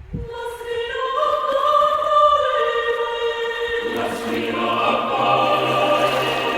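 Choral music: voices singing long held notes, with a deeper sustained part and fuller harmony coming in about four seconds in.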